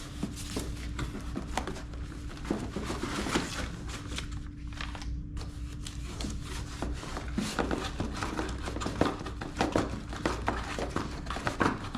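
Hands rummaging through unboxing packaging: rustling and crinkling with many small clicks and knocks, over a steady low hum that fades out a little past halfway.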